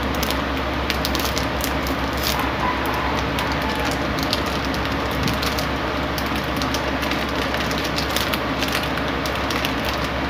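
A person chewing food close to the microphone, with scattered small wet mouth clicks, over a steady low hum and hiss.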